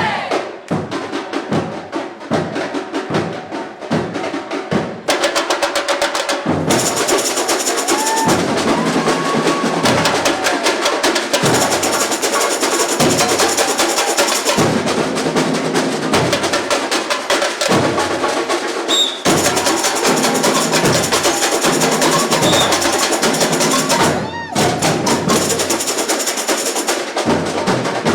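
Samba bateria (university drum corps) playing: spaced-out strokes for about the first five seconds, then the full section comes in with a dense, driving samba rhythm of drums and high metallic percussion. There is a brief break near the end before it picks up again.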